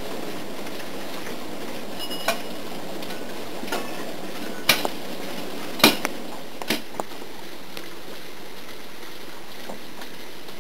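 A steady rushing noise with a handful of sharp knocks between about two and seven seconds in. The first knock has a brief metallic ring.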